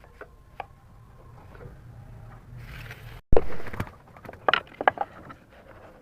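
Wood and hand tools being handled on a workbench: scattered clicks, then a loud knock about three seconds in and a quick run of taps and knocks soon after.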